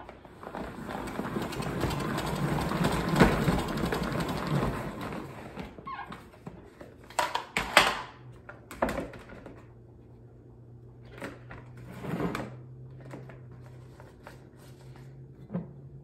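Plastic salad spinner whirring as its basket of wet shredded cabbage is spun, swelling and then dying away after about six seconds. Sharp plastic clatters follow as the lid is taken off, then lighter knocks as the cabbage is handled.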